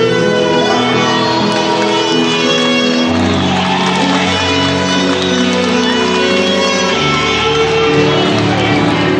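Slow instrumental music with long held notes; the bass moves to a new note about three seconds in and again about seven seconds in.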